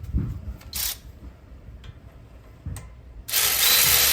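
Light clicks and knocks of tools being handled, then about three seconds in a power ratchet starts and runs steadily with a loud hiss, driving in the 12 mm bolt of the brake hose mount.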